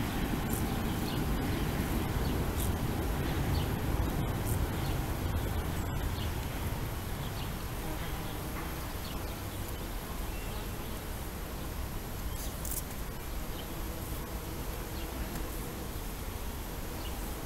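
Bumblebees buzzing as they forage among flowers, over a steady low rumble of background noise that eases a little partway through.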